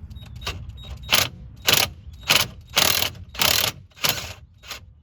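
Ratchet wrench clicking in about seven quick strokes, roughly one every half second, as a bolt is backed out.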